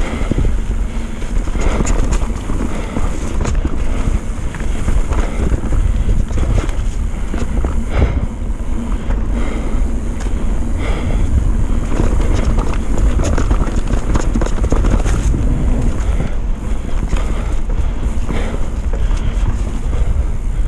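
Downhill mountain bike descending a wet dirt singletrack at speed: steady wind buffeting on the microphone over tyre rumble, with the bike rattling and knocking over roots, one sharp knock about eight seconds in.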